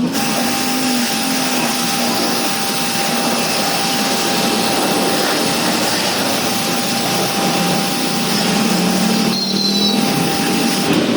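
An electric pressure-washer pump running with a steady whine while its jet sprays water with a loud hiss. Near the end the hiss drops away for about a second.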